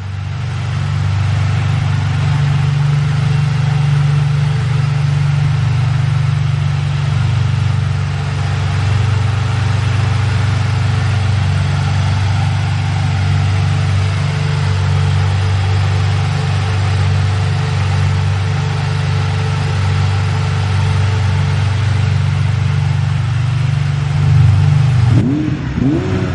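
Ferrari 550 Barchetta's 5.5-litre V12 idling steadily. Near the end the throttle is blipped, and the revs rise quickly and fall back.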